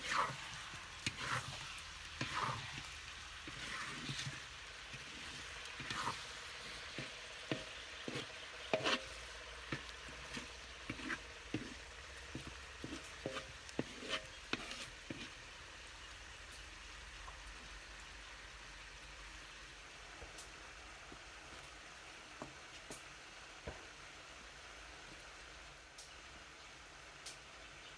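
Food frying and sizzling in a pan while it is stirred, a utensil knocking and scraping against the pan in quick irregular strokes. The stirring stops about sixteen seconds in, leaving the steady sizzle with a few light clicks.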